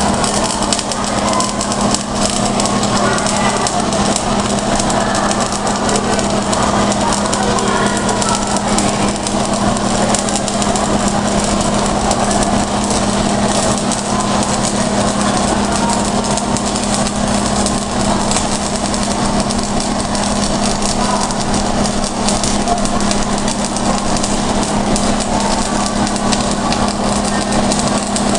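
Stick (shielded metal arc) welding: the arc crackles and sputters continuously as the electrode burns onto the metal piece, over a steady low hum.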